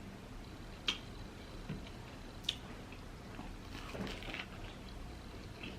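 Close-miked eating of lobster: quiet chewing and wet mouth sounds, with two sharp lip-smacking clicks, about a second in and about two and a half seconds in.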